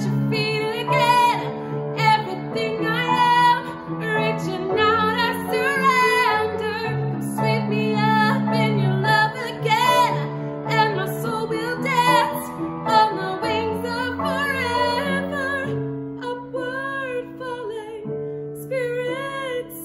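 A woman singing a slow worship song, her voice carrying a light vibrato, over sustained grand piano chords. The singing and piano grow a little softer in the last few seconds.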